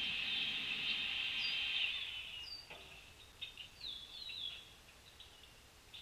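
Outdoor ambience at bird feeders: a steady high insect chorus fades out about two seconds in, while a bird gives several short, high, falling call notes, followed by a few quiet chips.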